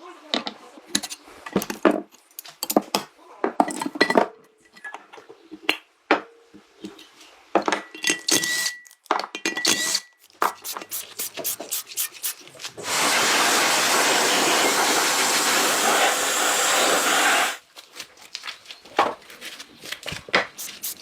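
Metal tools clinking and knocking in a workshop, broken about two thirds of the way through by a loud, steady hiss that lasts about five seconds and cuts off suddenly.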